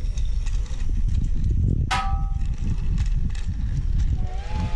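Plarail toy train running on plastic track, heard from a camera riding on the train: a steady rattling rumble of wheels and motor on the rails. About two seconds in there is a sharp click with a short ringing ping, and near the end a held ringing tone starts, rising slightly at first.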